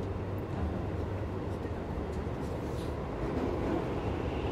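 Inside a Tokyo Metro subway car running along the line: a steady low rumble of wheels on rail, with a few faint high clicks and rattles.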